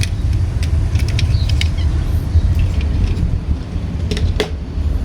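A steady low rumble with scattered light clicks and taps of plastic toy vehicles being handled, two sharper clicks about four seconds in.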